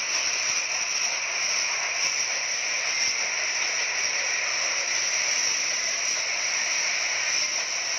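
Steady hiss of water spray and steam as a fire is doused with hoses.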